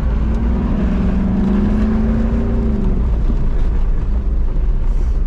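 Supercharged Range Rover P38's V8 engine pulling off-road in high range over a heavy, steady rumble, its tone rising gently for about three seconds and then dropping as the throttle eases off.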